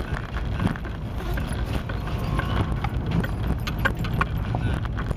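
Vehicle driving slowly along a gravel dirt track: a steady low engine and tyre rumble, with scattered clicks and knocks of stones under the tyres and small rattles.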